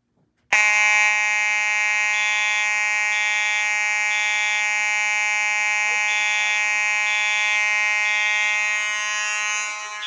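Fire alarm horns sounding just after a pull station activates the system: a loud continuous buzzing horn cuts in about half a second in, and a higher tone pulses over it in groups of three, the temporal-three evacuation pattern.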